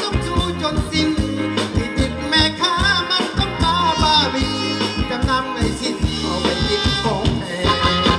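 Thai ramwong dance music played live by a band, with a steady drum beat and a singer's voice in the middle.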